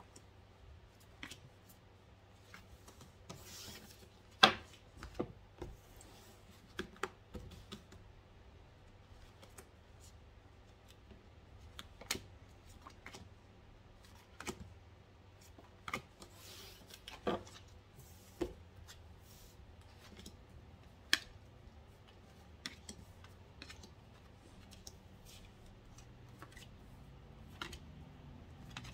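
Tarot and oracle cards being gathered, slid and laid out by hand on a table: scattered soft clicks, slides and rustles of card on card and card on tabletop, with a sharper tap about four and a half seconds in.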